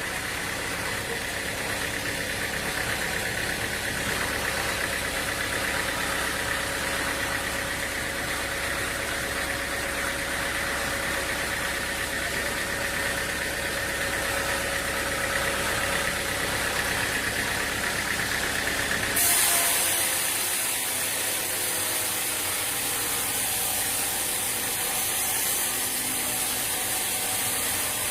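Machinery running steadily with an engine-like rumble and a steady high whine. About two-thirds of the way through, the low rumble drops away abruptly and a bright hiss takes over.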